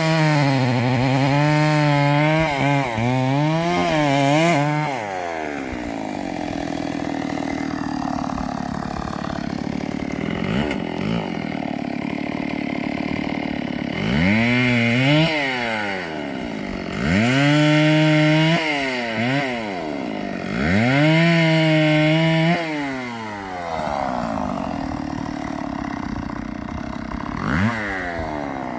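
Chainsaw cutting a poplar trunk. It revs up hard for about five seconds, drops to a long idle, then revs in three short bursts in quick succession. It idles again and picks up once more at the end.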